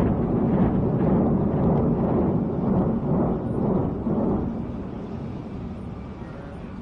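Deep rumble of a large building collapsing in a demolition, loud at first and dying away over the last few seconds.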